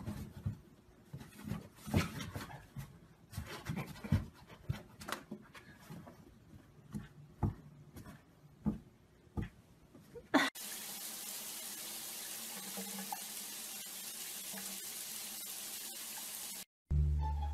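Irregular taps and knocks as a cat bats a small toy about on a cardboard surface. After about ten seconds this gives way to a steady rush of water running in a bathtub, which cuts off near the end.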